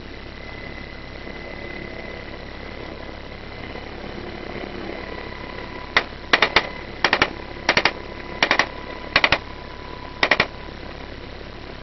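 Steady drone of a medevac helicopter heard from inside its cabin, with a thin steady whine. About six seconds in come seven quick clusters of sharp cracks, mostly in pairs, spread over some four seconds and louder than the helicopter.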